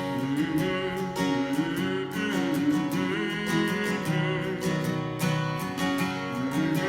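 Instrumental break in a country song: strummed acoustic guitar with a steady beat and a wavering lead melody over it.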